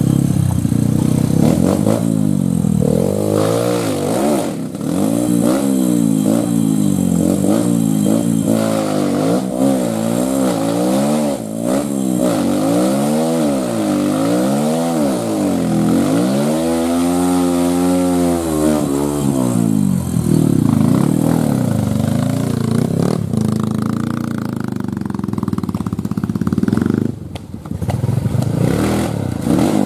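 Trail motorcycle engine revved hard again and again, its pitch swinging up and down every second or so as the bike labours up a steep, rutted climb. About 16 seconds in there is one long, high rev lasting a few seconds, then the engine settles to a lower, steadier running.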